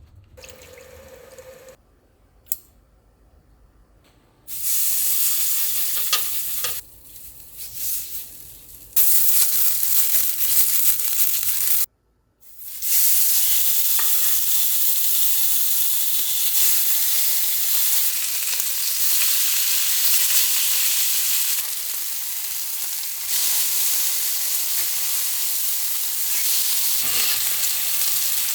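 Food frying in hot oil in a cast-iron pan, sizzling. After a quiet start with a single click, the sizzle sets in about four seconds in, breaks off briefly twice, then carries on steadily.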